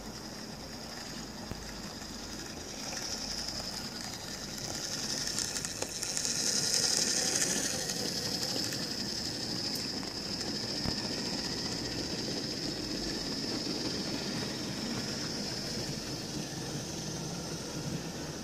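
Hornby OO gauge BR Class 4F 0-6-0 model locomotive running with a train of coal wagons: the small electric motor gives a steady high whine and the wheels clatter on the track. It is loudest about six to eight seconds in, as the train passes close by.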